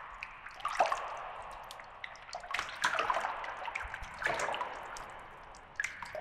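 Sound effects for an animated logo intro: watery splashes and drips with four swooshing swells, each starting suddenly.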